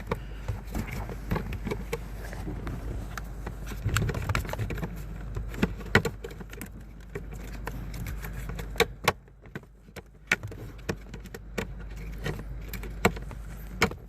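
Scattered, irregular clicks and knocks of a small car fuse box being handled and fitted back into place.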